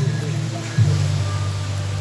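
Background music with a held bass line that shifts note about a second in.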